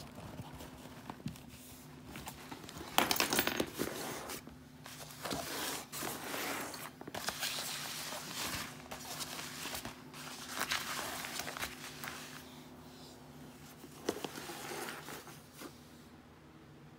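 Cotton diaper bag being handled: irregular rustling and crinkling of fabric as hands move it about, loudest about three seconds in and dying down near the end.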